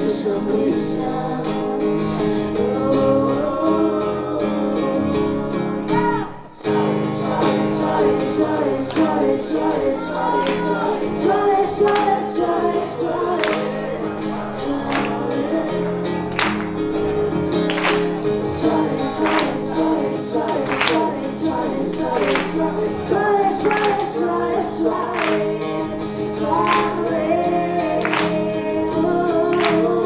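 Live acoustic song: a woman singing over two acoustic guitars, the chords strummed at a steady beat. The music drops out for a moment about six seconds in, then picks up again.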